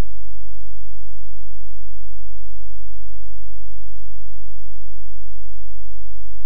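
Loud, steady low electrical hum, typical of mains hum picked up by a sound system.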